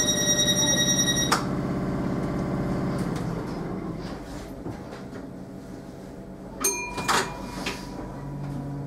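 Tyne & Wear Metro train's door-closing warning tone, which stops with a knock as the sliding doors shut about a second in. Later a short tone with a couple of clicks, and near the end a low steady hum comes in as the train gets ready to move off.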